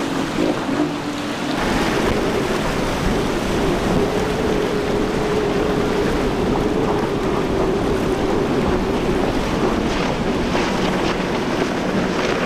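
Triple Mercury outboard engines of a center-console boat running at speed, a steady engine hum under the rush of water and spray. Wind noise on the microphone.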